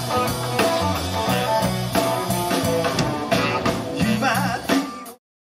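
Live band playing through a PA system, with electric guitar over bass and drums. The music cuts off abruptly about five seconds in.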